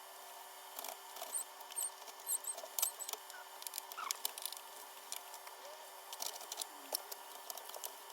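Scattered light clicks, taps and small squeaks of hands working on a split air conditioner during cleaning: plastic parts and tools being handled. The sounds are irregular, busiest in the first half.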